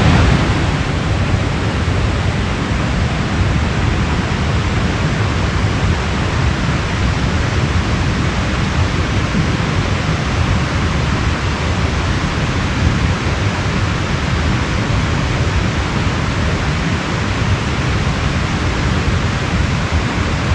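Stream water rushing steadily over rocks, a loud even noise.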